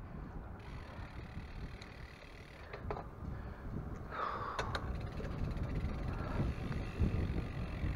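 Wind buffeting the microphone and road rumble from a bicycle being ridden, with a few light clicks and rattles from the bike; it grows louder about halfway through.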